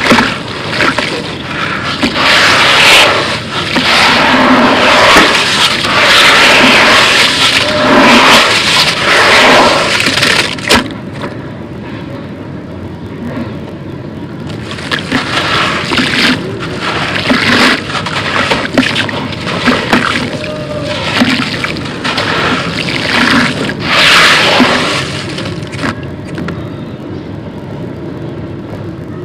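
Crumbly dry concrete crushed by hand and falling into water in a plastic tub: a dense crunching and crackling with splashing. It is loud and continuous for about the first ten seconds, then drops back and comes in separate bursts.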